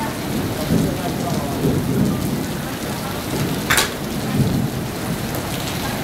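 A golf club strikes a ball once, a single sharp crack about two-thirds of the way in, over a steady rushing background noise.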